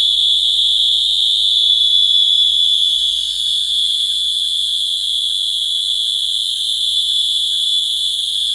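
Electronic buzzer in a light-dependent-resistor circuit sounding one continuous high-pitched tone, driven by laser light falling on the LDR.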